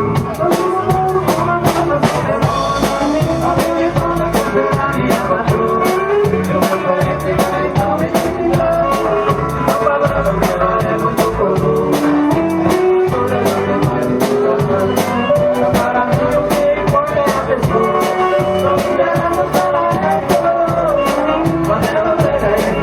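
Live dance band playing a xote: an accordion melody over bass and a drum kit keeping a steady, even beat.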